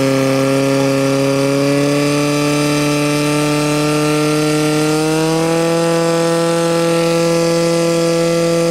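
Portable fire pump's engine running at full throttle, pushing water through the attack hoses: a loud, steady engine note that climbs slightly in pitch about five seconds in.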